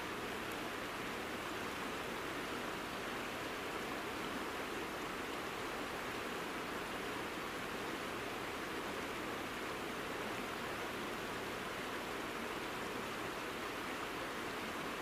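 Steady, even rushing of a mountain river, with no breaks or changes.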